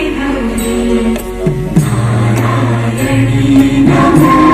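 Soundtrack music of a fort sound-and-light show, played over loudspeakers: chant-like singing with long held notes over instrumental accompaniment.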